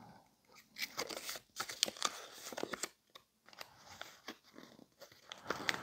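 A small folded paper note being unfolded and handled: faint crinkling and rustling in short spells, with a few small clicks.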